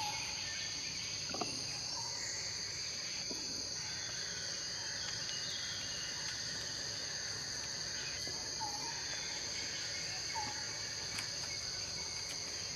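Steady, high-pitched drone of a forest insect chorus, with a few faint short chirps now and then.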